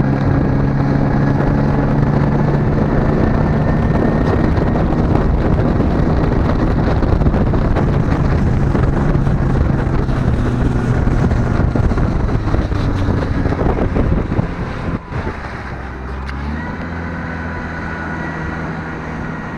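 New outboard motor on a bass boat running under way, a steady engine drone mixed with wind on the microphone and water rush. About 15 seconds in it is throttled back and settles into a quieter, lower steady note.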